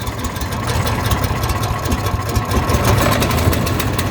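Small gasoline engine of a Ducar wood chipper running steadily just after starting, at a rapid even beat, growing slightly louder.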